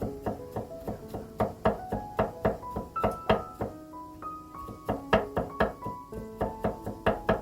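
Gentle piano background music over a steady run of sharp knocks, about three a second, typical of a knife slicing vegetables on a cutting board.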